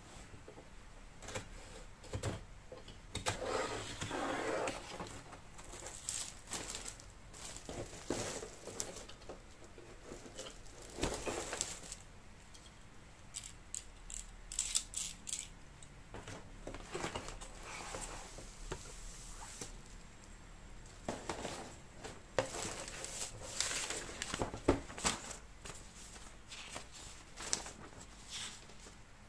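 Cardboard and plastic packaging being handled, cut and pulled away: irregular rustling and crinkling with scattered clicks and scrapes.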